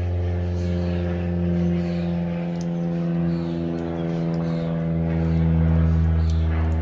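An airplane flying over: a steady low engine drone made of several tones that drift slightly in pitch, swelling louder about six seconds in.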